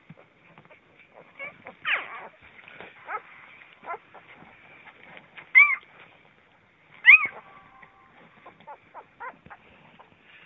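Very young Vizsla puppies squeaking and whimpering in a pile, with soft grunts and three louder high squeals; the two loudest come a second and a half apart.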